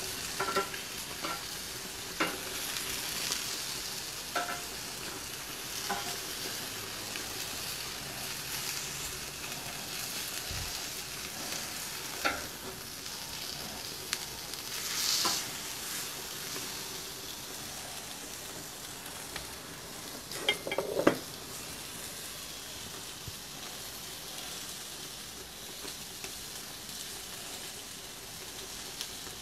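Wagyu steak strips sizzling steadily on a hot gas grill's grate. Metal tongs click against the grate now and then as the pieces are turned, the sizzle surges loudly about halfway, and the tongs clatter a few times a few seconds later.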